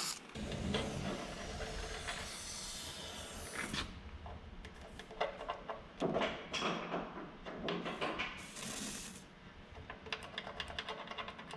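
Eastwood internal frame coating aerosol spraying through its long extension wand: a hiss lasting about four seconds, then scattered clicks and rattles, and another short hiss of about a second near the end.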